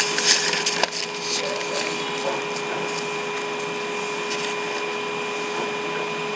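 A few sharp clicks and crackles in the first second, then a steady background hiss with faint, steady whining tones.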